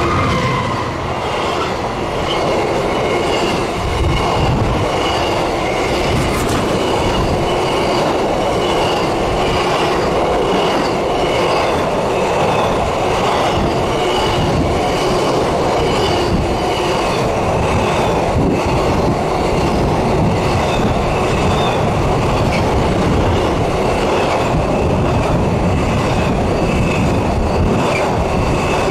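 Container freight train's loaded flat wagons rolling past close by at speed: a loud, steady rush of wheel and rail noise with the clatter of wheels over the rail joints and faint high ringing from the wheels that comes and goes. The class 66 diesel locomotive's engine drone fades out at the start.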